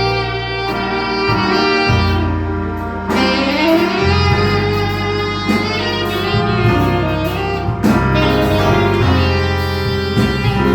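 Instrumental music: a sustained melodic lead line over a moving bass and chords, with a rising bend into a held note about three seconds in.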